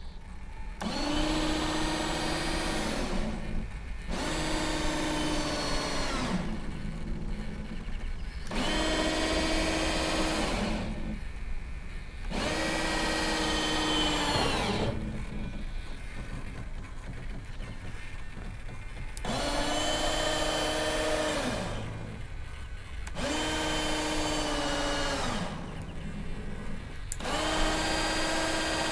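Small electric actuator motor in an RC Panavia Tornado model jet running in seven separate bursts of about two to three seconds each. Each burst is a steady whine that winds up at the start and down at the stop.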